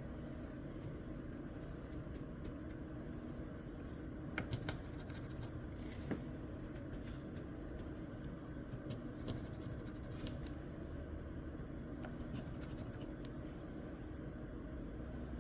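Scratching away the coating of a crossword lottery scratch-off ticket: light scrapes and ticks come and go over a steady low hum.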